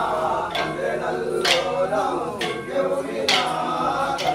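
A group of men chanting a folk song in chorus while striking short wooden sticks together in time, a sharp clack about once a second.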